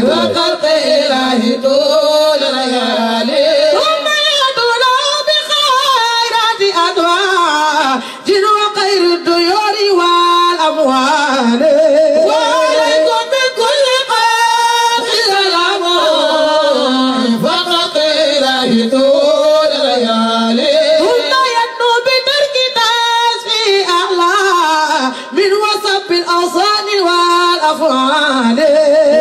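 Islamic devotional song: a voice sings a long, ornamented melody that keeps rising and falling, over music.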